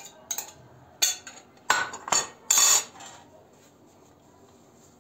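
Glass kitchenware and metal tongs being handled on a counter: a few sharp clinks and knocks, with the loudest, a short scraping clatter, about two and a half seconds in.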